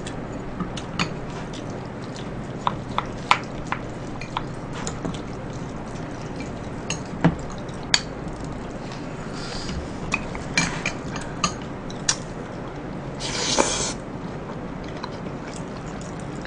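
Spoon and chopsticks clicking lightly against ceramic rice bowls while two people eat, over a steady low hum. A brief louder rushing noise comes about 13 seconds in.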